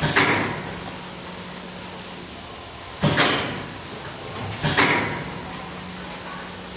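Small syrup-sachet packaging machine running with a steady low hum. A sudden noisy burst comes three times and fades over about half a second each time.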